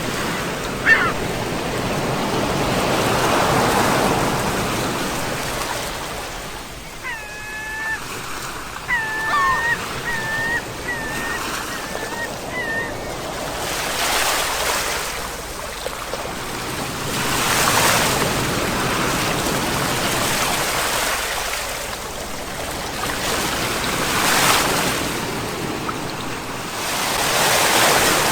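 Sea waves washing in and breaking, the surf swelling and easing every few seconds. About a quarter of the way in, a short run of brief pitched calls from an animal or bird comes in over the surf.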